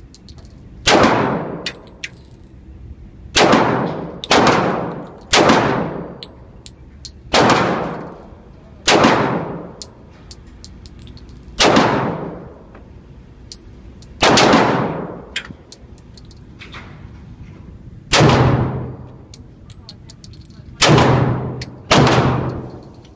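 Ruger SR45 pistol firing .45 ACP rounds in an indoor range: eleven single shots spaced irregularly, one to three seconds apart with a couple of quicker pairs. Each shot rings on in the range's reverberation, and light metallic clinks are heard between shots.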